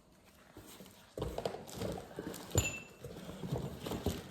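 Irregular knocks, taps and rustles of packaging and objects being moved about by hand, with a brief squeak near the middle.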